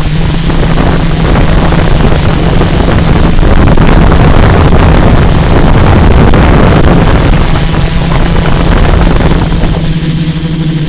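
Multirotor drone's motors and propellers droning steadily as heard from its onboard camera, under a rush of wind on the microphone that swells in the middle and eases near the end.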